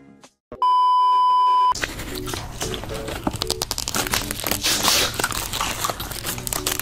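A steady electronic beep lasting about a second. Then crunching and crinkling as sheets of construction paper are bitten and chewed, over light background music.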